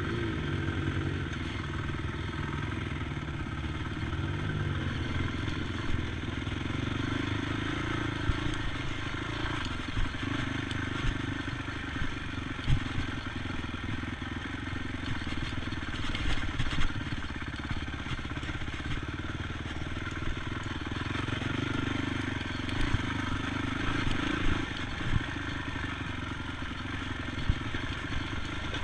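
ATV engine running steadily, its pitch rising and falling a little, with frequent knocks and rattles throughout.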